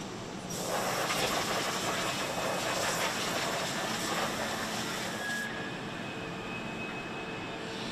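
Factory machinery noise: a loud steady hiss sets in about half a second in and eases off after about five seconds, leaving a quieter hum with a few faint steady tones.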